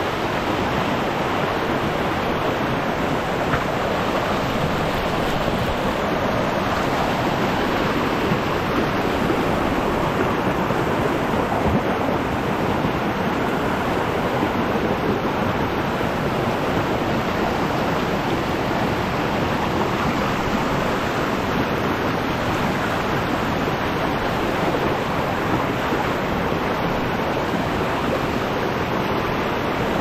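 Mountain stream rushing over rocks in rough, fast rapids: a steady, even rush of water.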